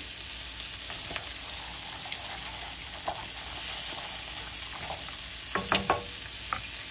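Chicken breasts searing in a pan: a steady sizzle, with a few sharp clicks and knocks, the loudest a little before six seconds in.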